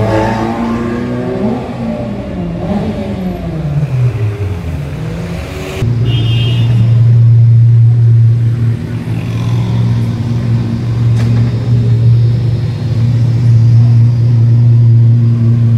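A McLaren supercar's engine driving past, its note rising and falling, then dropping away. After a sudden cut, the Apollo Intensa Emozione's naturally aspirated V12 running steadily at low revs, a loud, deep, even note.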